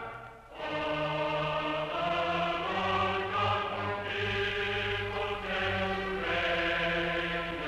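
Background music: a choir singing long held chords over orchestral accompaniment, coming in after a brief dip about half a second in.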